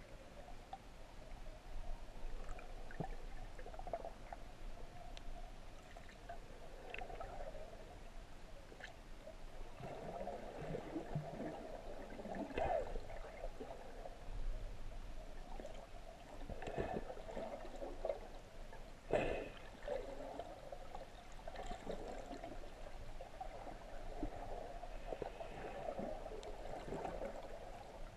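Water gurgling and sloshing around a GoPro camera held underwater, muffled through its waterproof housing, with a few sharp knocks, the loudest about two-thirds of the way through.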